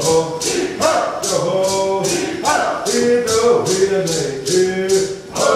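Cherokee social dance song: voices chanting over a steady percussive beat of about three strokes a second.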